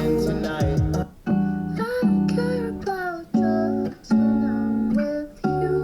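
Music played through a vintage Realistic Nova 8 three-way speaker: one track stops about a second in and a new song with strummed guitar chords starts, with short breaks between the chords.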